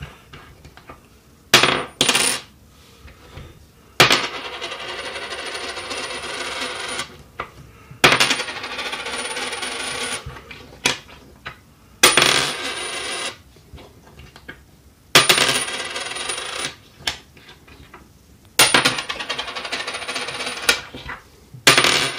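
A US quarter tossed onto a wooden tabletop about six times. Each toss lands with a sharp clink, then spins and rattles with a high ringing for one to three seconds before settling flat with a few last clicks.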